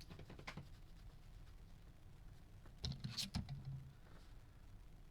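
Faint clicks and taps, with a brief cluster of louder clicks about three seconds in.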